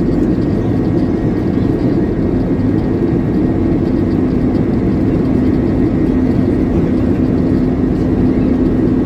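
Airbus A321's two IAE V2533-A5 turbofan engines at takeoff thrust during the takeoff roll, heard inside the cabin: a loud, steady engine noise with a constant low hum running through it.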